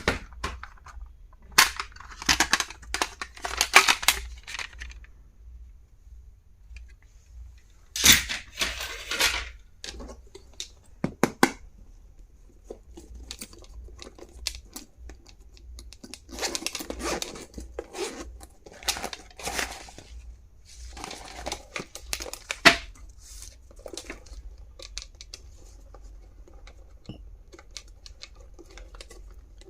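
Stationery being unboxed by hand: plastic packaging crinkling and tearing, with sharp clicks and snaps in irregular bursts and short quiet gaps between.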